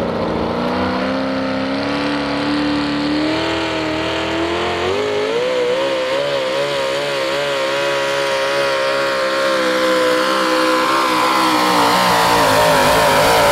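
Supercharged 650-cubic-inch big-block V8 of a 1995 Chevy modified 4x4 pulling truck at full throttle, dragging a pulling sled. The engine pitch climbs steadily over the first five seconds, then holds with a wavering pitch, and rises again near the end.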